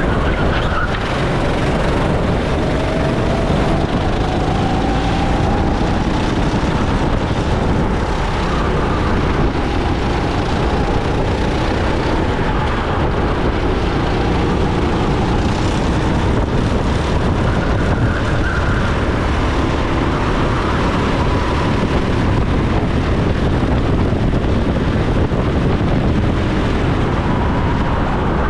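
Go-kart engine running at race pace under a loud, steady rush of noise, its note slowly rising and falling with the revs through the laps' corners and straights.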